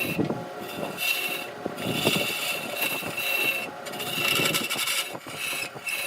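Wood lathe turning a workpiece while a turning tool scrapes and cuts the spinning wood. It makes a high scraping tone that starts and stops in short repeated passes over a gritty crackle of chips coming off.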